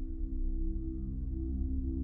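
Background music: ambient, with sustained tones held over a deep bass, slowly growing louder.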